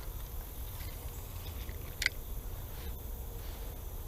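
Outdoor ambience with a steady low rumble of wind on the microphone and one brief sharp sound about two seconds in.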